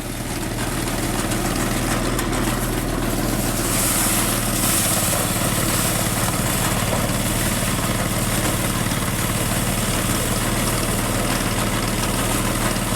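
Engine-driven rice threshing machine running steadily as rice plants are fed in to strip the grain. A brighter high hiss joins about four seconds in.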